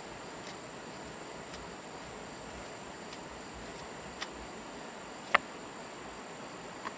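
Steady high-pitched insect trilling, like crickets, with two sharp clicks about four and five seconds in, the second louder.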